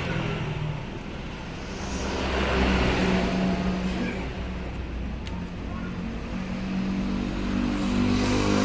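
A motorcycle engine running, its revs rising twice, about two seconds in and again near the end.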